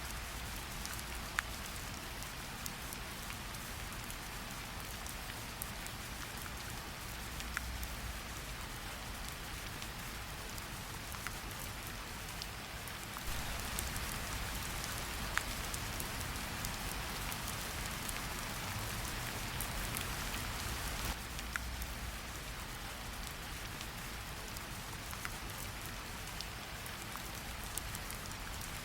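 Steady rain, an even hiss with a louder stretch from about a third of the way in to past two-thirds, with a few scattered sharp pops of a wood fire crackling.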